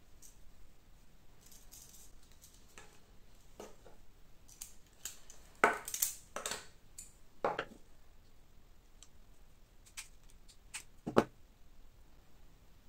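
Small 3D-printed plastic parts and springs of a crossbow magazine being handled and fitted by hand: scattered light clicks and knocks, the loudest in a cluster about six seconds in and a sharp one near the end.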